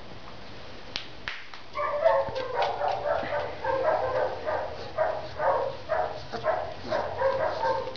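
A 34-day-old bull terrier puppy yipping and whining in a quick run of short, high cries, about three a second. The cries start about two seconds in, after a couple of sharp clicks.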